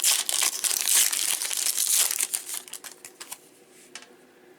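Wrapper of a baseball card pack crinkling and tearing as it is opened by hand. The crackle dies down about two and a half seconds in, leaving a few faint clicks.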